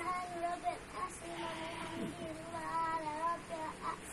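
A young child's voice chanting Arabic prayer words aloud in long, drawn-out sung notes, with the pitch wavering on each held syllable.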